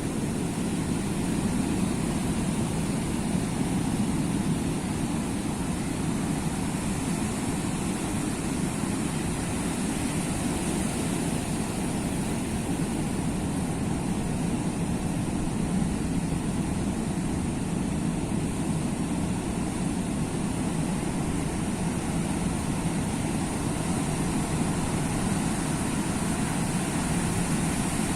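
Sea surf washing continuously, a steady low rushing rumble with no single wave standing out.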